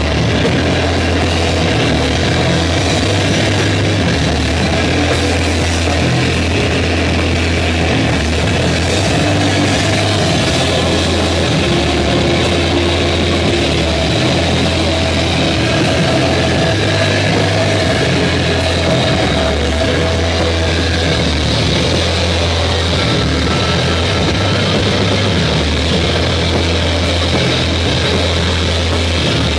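Loud live band music from amplified electric guitar and a clarinet: a dense, steady drone with a low hum under it and a few held notes.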